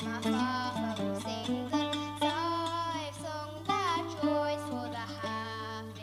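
A girl singing a folk song, accompanied by a plucked acoustic string instrument.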